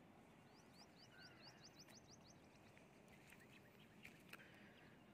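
Near-silent outdoor background with a faint bird call: a quick run of short, rising high notes, about six a second, lasting about two seconds near the start. A few faint clicks follow.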